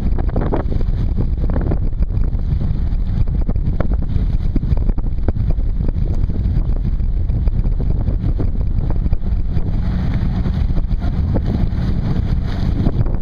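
A steady low rumble of wind buffeting the microphone, mixed with engine and water noise from the lake freighter passing close alongside.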